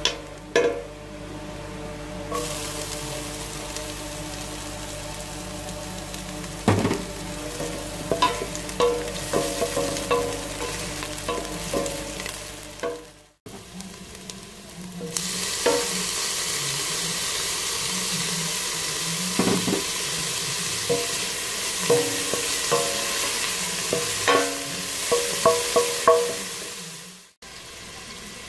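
Diced garlic and onion frying in oil in a stainless steel pot, sizzling steadily while a wooden spoon stirs, scrapes and knocks against the pot. The sizzle cuts off abruptly about halfway through and again near the end.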